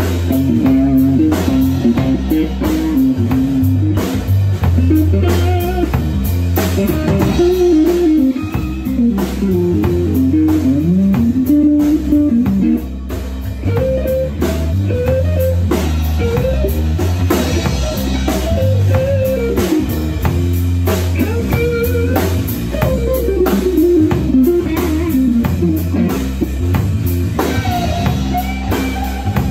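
Blues-rock trio playing live: lead electric guitar with bent notes over electric bass and a drum kit.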